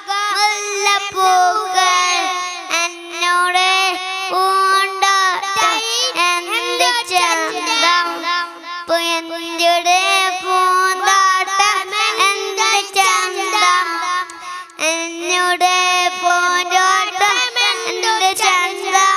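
A group of young boys singing a melody together in unison into microphones, with long held notes. The voices come through a stage sound system.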